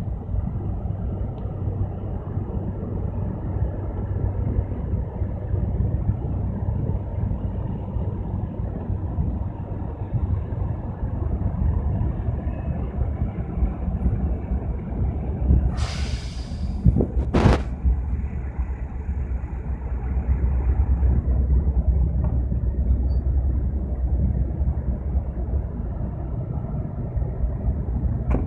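Steady low rumble of a departing livestock carrier ship's diesel engines and its tug. About two-thirds of the way through there is a short hiss, then a sharp click.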